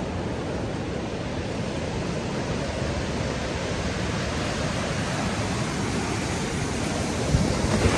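Ocean surf breaking and washing up a sandy beach, a steady rush of noise that grows a little louder near the end.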